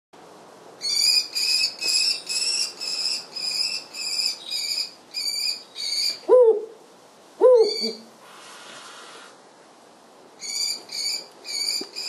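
Bird of prey calling: a run of harsh, high-pitched calls repeated about two a second, broken near the middle by two lower, falling calls, then starting up again near the end.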